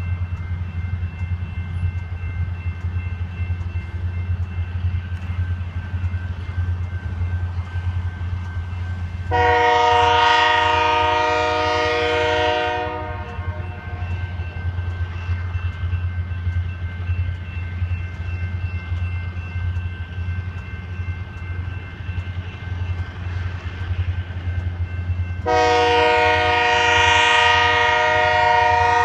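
Diesel locomotive horn from an approaching train sounding two long blasts, one of about three and a half seconds near the middle and another starting near the end, over a steady low rumble.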